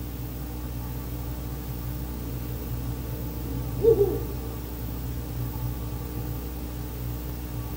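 Ural owl hooting: two short hoots close together about four seconds in, over a steady low hum.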